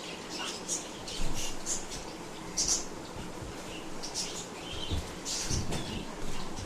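German Shepherd nosing at a sleeping person to wake them: irregular short sniffs and licks, with a few faint high squeaks.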